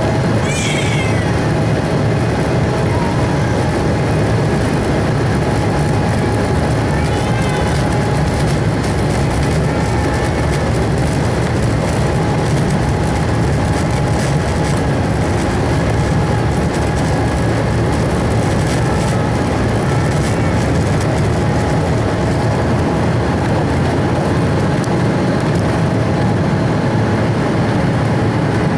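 Boeing 777-240ER jet engines and wheels heard from inside the passenger cabin during the takeoff roll: a loud, steady rumble with a steady engine whine over it, and some rattling and bumping from the runway partway through.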